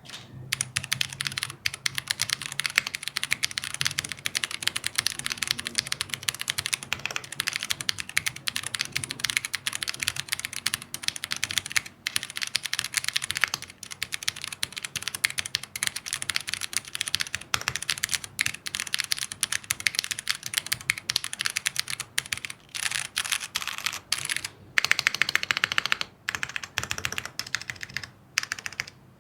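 Typing test on a QK60 mechanical keyboard in HHKB layout with MX purple switches, aluminium plate and bottom case, polycarbonate top, no foam and GMK keycaps: fast, continuous keystrokes with a few short pauses.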